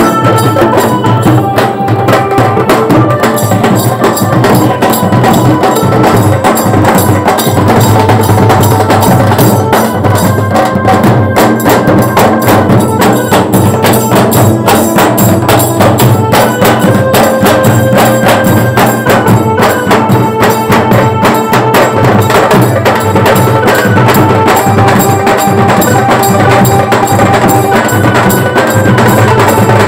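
Bengali wedding band party playing loud music through a phone microphone: fast, steady drumming under a melody of held notes that step from pitch to pitch.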